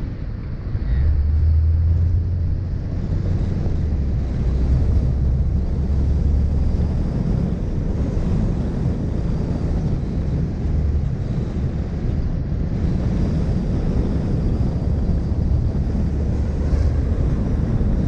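Mini Cooper S Roadster's turbocharged 1.6-litre four-cylinder engine driving at city speed, a low drone that comes up about a second in, under wind buffeting the microphone and tyre noise.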